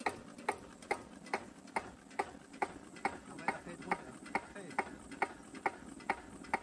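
Cunewalder single-cylinder, hopper-cooled diesel engine idling very slowly, a sharp, even knock about two and a half times a second. Washers are fitted in the injection pump's idle setting to bring the idle speed down.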